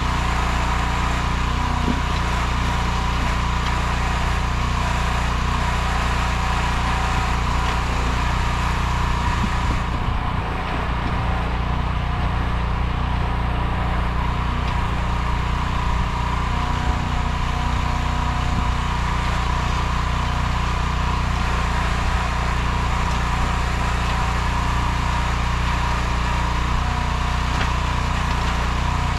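Small 15 hp engine of a Nortrac towable backhoe running steadily.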